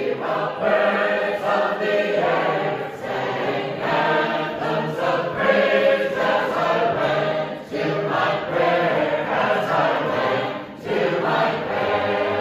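A roomful of Sacred Harp shape-note singers singing a hymn unaccompanied in parts, at full voice, with two brief breaks between phrases.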